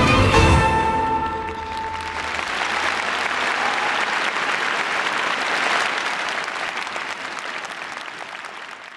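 Tango music with violin ends on a held final note, fading out over the first two seconds. An audience applauds, building to its loudest about six seconds in and then slowly fading.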